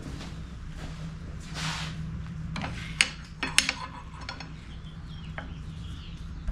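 Steel tooling on a Di-Acro No. 2 hand bender being handled at the clamp block: two sharp metal clinks about three seconds in, half a second apart, with a few fainter clicks and a brief rustle, over a steady low hum.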